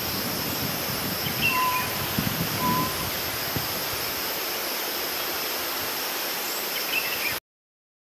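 Hill myna giving a few short whistled notes over a steady hiss. The sound cuts off suddenly shortly before the end.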